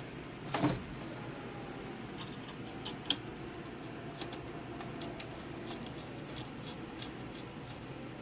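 A cable being handled and plugged into the back of a television: a short scraping rustle near the start, a sharp click about three seconds in, and a few faint ticks.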